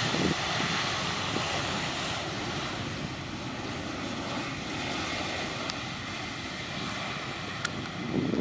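Airbus A319 jet engines running as the airliner decelerates along the runway just after landing, a steady rushing noise that eases a little.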